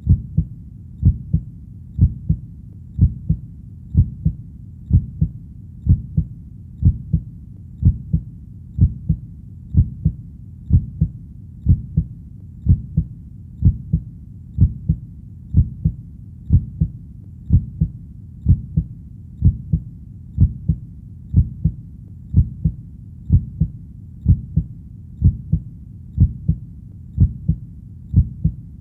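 Heartbeat: a steady, even lub-dub double thump about once a second, deep and low, over a faint steady low background.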